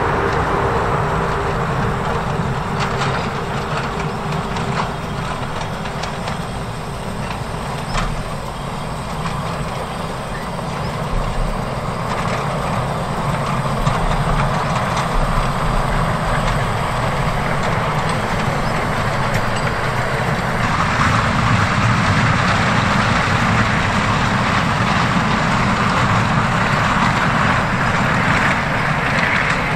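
A 12-inch gauge 0-4-2 tank steam locomotive running along the track, a steady rumble and hiss.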